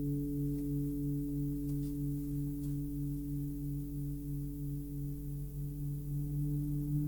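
Tibetan gong (80G-IV) ringing on after a strike: a long sustained hum of several steady tones, the lowest one pulsing slowly and regularly as it gradually fades.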